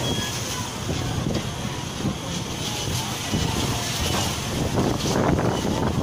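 Strong typhoon wind buffeting the microphone, a steady low rumble over the hiss of heavy rain, gusting a little louder near the end.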